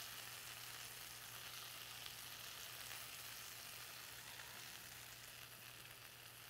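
Fish fillets frying in oil in a cast iron skillet over lowered heat: a steady sizzle.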